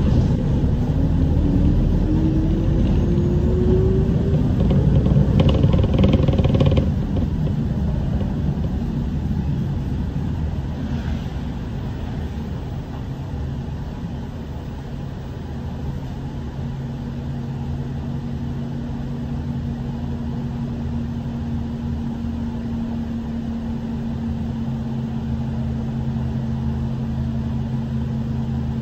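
City bus heard from inside: a whine rising in pitch over the first few seconds with loud rumble as the bus gathers speed, easing after about seven seconds into quieter running with a steady low hum.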